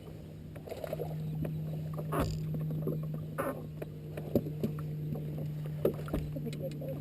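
Boat motor running with a steady low hum, with scattered knocks and a few short splashy sounds of water and gear.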